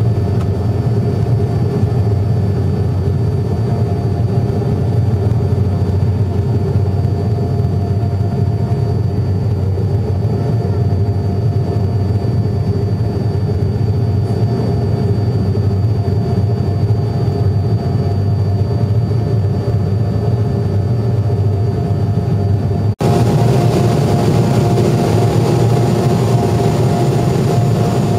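Steady jet engine and airflow drone inside an airliner cabin during the climb after take-off, deep and even, with a few faint steady whine tones over it. Near the end the sound breaks off for an instant and comes back slightly louder and brighter.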